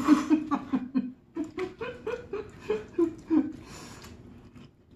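A person laughing: a run of short, repeated laughs, the densest at the start.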